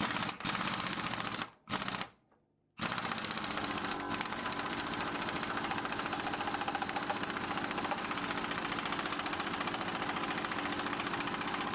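Impact wrench hammering on a crank puller through a socket, trying to pull a bicycle crank arm off its square-taper spindle. A few short bursts first, then a brief pause, then it runs on steadily with a fast rattle from about three seconds in.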